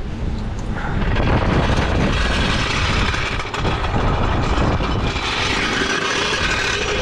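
Wind rumbling on the microphone, with a steady vehicle noise that swells in about a second in and holds.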